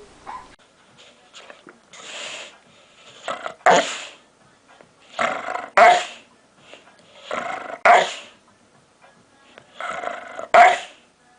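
A dog vocalising in a repeating pattern, four times about every two and a half seconds. Each time a rougher, noisier sound leads straight into a short, loud bark.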